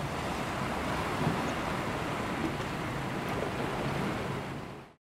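Steady rush of wind and sea water, with a low rumble underneath, fading out just before the end.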